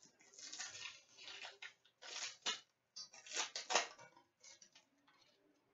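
Crinkling and rustling of a trading-card pack wrapper being torn open and the cards handled, in a run of short, irregular bursts that die away near the end.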